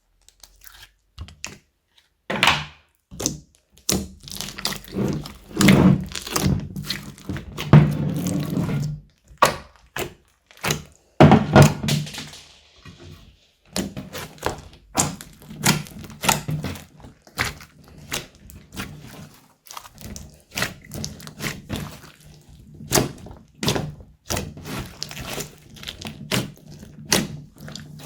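Hands kneading and pressing slime. It gives a run of sharp, sticky clicks and pops, with longer squishing stretches about four to nine seconds in and again around eleven seconds.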